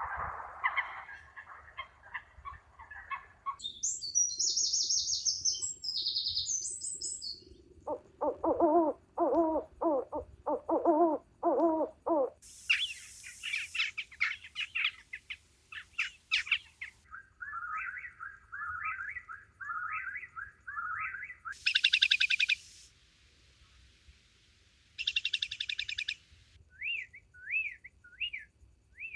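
A run of different animal and bird calls, mostly chirping and repeated bird calls, changing abruptly every few seconds from one kind of call to another.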